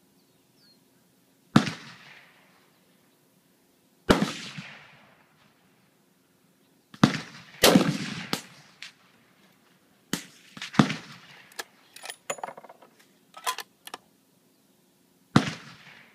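Rifle shots on an outdoor range: about ten sharp reports at uneven intervals, the loudest trailing off in a long echo. Some come less than a second apart, so more than one gun is firing.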